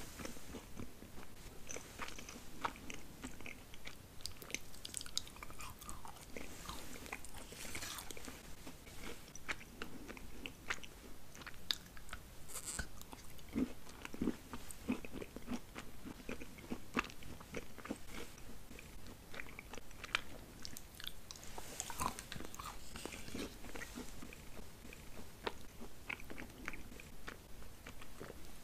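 Chocolate candies being bitten and chewed, an irregular run of small crisp crunches and mouth clicks throughout.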